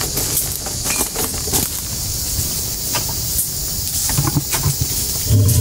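Steady hiss with scattered clicks and rustles of handling; about five seconds in, a deep, low rumble from the sedated elephant begins and is the loudest sound.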